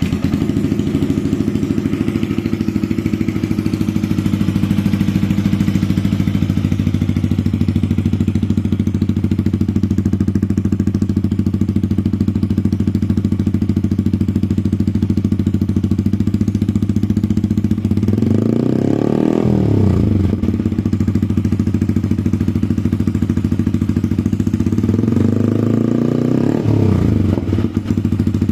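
Yamaha MT-15's single-cylinder engine breathing through a Leo Vince slip-on exhaust with the dB killer removed, idling steadily. About two-thirds of the way through it is revved once, the pitch rising and falling back to idle, and a few seconds later it is revved again.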